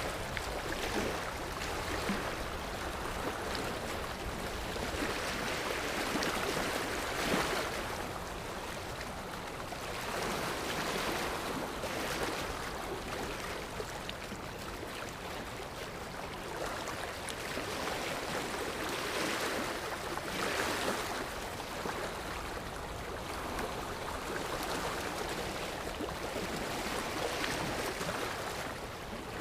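Sea surf: waves washing in one after another, a steady rush of water that swells and eases every few seconds.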